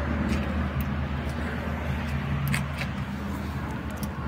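An engine running steadily with a low, even hum, with a few scattered light clicks over it.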